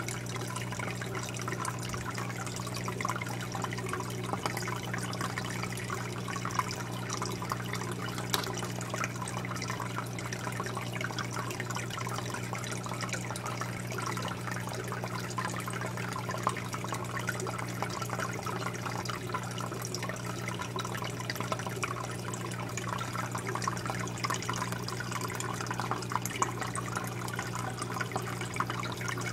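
Aquarium air bubbles rising from a bubble curtain and breaking at the water surface, a steady fizzing and gurgling of water, with a constant low hum underneath.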